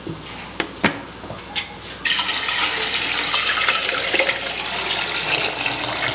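Water poured in a steady stream into a steel tin of syrup, starting suddenly about two seconds in: the filling of a jug-sized batch of sarbath. Before it there are a few sharp clicks.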